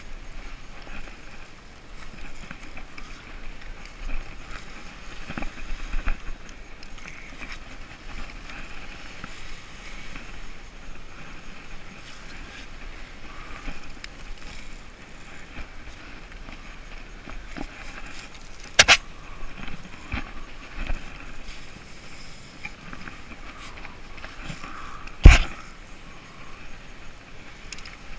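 Wind noise and handling rustle on a handheld camera's microphone while climbing a sailing boat's rope rigging, with two sharp knocks against the camera, the second and louder one near the end.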